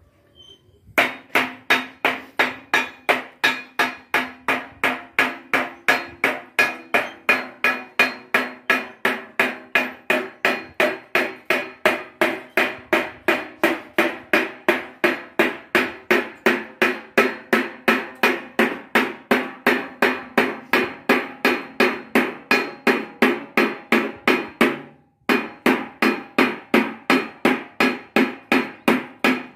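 Hand hammering on curved, polished sheet-metal dome panels at a steady pace of about three blows a second, each strike ringing with a metallic tone; the hammering stops briefly near the end, then picks up again.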